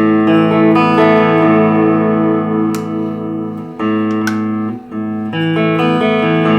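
Electric guitar through Fishman Fluence Classic humbucking pickups playing a few ringing chords, each let sustain, with a short break between chords a little after the middle. The pickups' second voice is switched on with the push-pull volume knob, giving a thicker, beefier tone.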